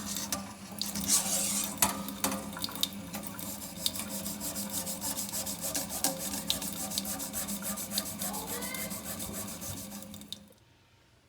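Scrubbing and rubbing on an aluminium drip rail moulding as it is cleaned, a continuous wet-sounding scrape with many small clicks over a steady low hum. It stops abruptly about ten and a half seconds in.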